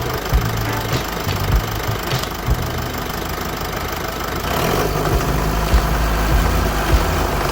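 Jeep Wrangler JK's 2.8-litre common-rail diesel engine idling, with short low knocks through the running. It gets louder and fuller about four and a half seconds in.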